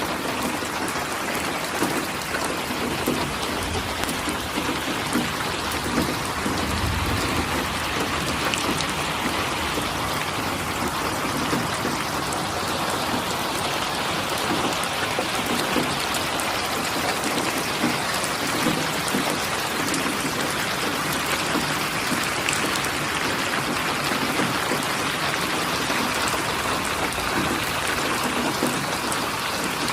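Steady rain falling, with many individual drops pattering on a surface and a brief low rumble about seven seconds in.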